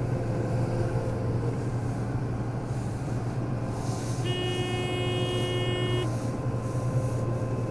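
Combine harvester running steadily, heard from inside the cab as a low, even drone. About four seconds in, a single electronic warning beep sounds for about a second and a half.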